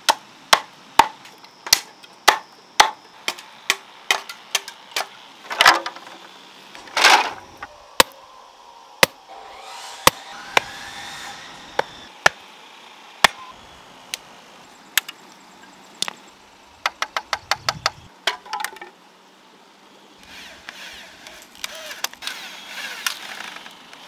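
Machete chopping and splitting green bamboo on a wooden block: a steady run of sharp chops, with two longer cracking splits of the bamboo. Later come slower single knocks, about one a second, of a hammer driving a bamboo fence post, and a quick run of light taps.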